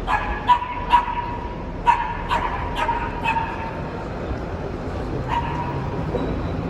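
A dog barking: a quick string of short barks over the first three and a half seconds, then one more bark about five seconds in.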